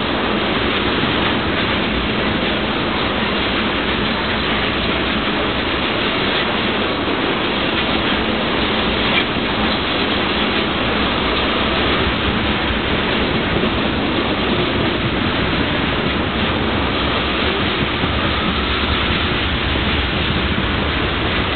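Tank cars of a freight oil train rolling past on steel wheels: a steady rumbling roar of wheels on the rails.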